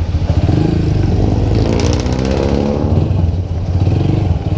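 Motorcycle engine running with a fast pulsing beat, its pitch rising and falling briefly about halfway through.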